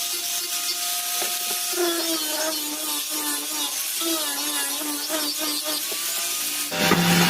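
A power tool working wood. Its motor pitch dips and wavers repeatedly as it bites into the wood. Near the end it changes abruptly to a louder, lower-pitched running.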